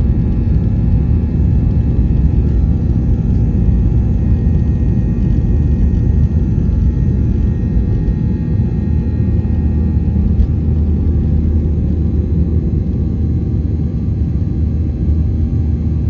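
Boeing 737-800's CFM56-7B turbofan engines at takeoff thrust, heard from inside the cabin over the wing, with the rumble of the takeoff roll: a steady, loud drone with steady fan tones. The deep rumble eases near the end as the plane rotates and lifts off.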